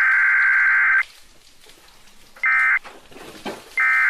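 Emergency broadcast alert tones from a radio: a harsh electronic beeping burst about a second long, then two short bursts, about 2.5 seconds in and near the end.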